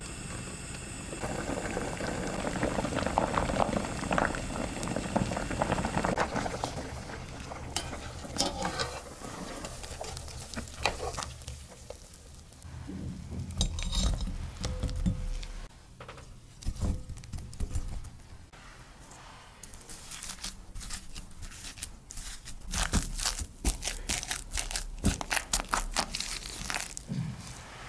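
Potato chunks boiling in a pot, a dense steady bubbling. Then soft thumps as they are tipped from a wire skimmer into a glass bowl. In the last several seconds a hand potato masher pounds them, a fast run of sharp knocks and clinks against the glass.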